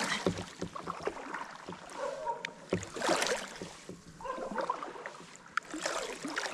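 Double-bladed kayak paddle dipping and pulling through calm lake water: a swishing splash about every three seconds, with a few light clicks between strokes.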